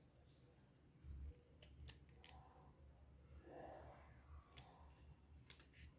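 Near silence with faint rustles and small ticks of paper being handled and pressed flat.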